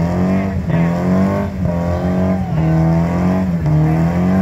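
Nissan car engine revving hard in a burnout, its pitch climbing and then dropping sharply about once a second as the tires spin in a cloud of smoke.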